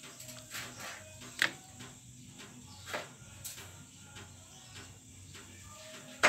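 A few sharp clicks and knocks from handling in the kitchen, the loudest near the end, over faint background music.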